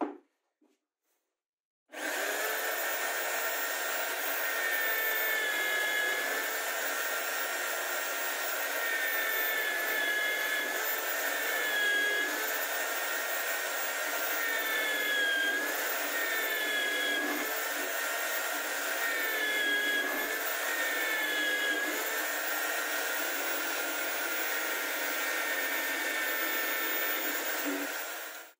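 Homemade drill press running steadily, its bit boring a series of holes into a plywood block. The motor's whine sags briefly in pitch every couple of seconds as the bit is plunged into the wood and loads the motor. It starts abruptly about two seconds in and stops just before the end.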